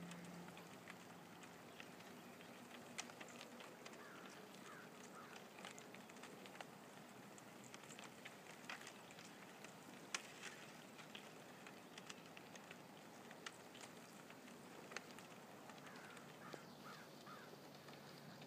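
Floating river ice floes crackling faintly: scattered, irregular ticks and small pops over a soft hiss.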